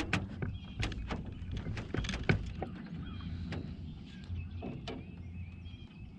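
A run of sharp knocks and clicks from fishing gear being handled in a small boat, the loudest a single knock a little past two seconds in. In the second half there are a few faint high chirps, like birds.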